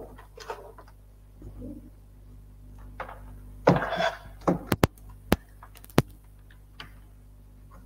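Steady low hum with a few soft knocks, a brief noise about halfway through, and then a handful of sharp clicks.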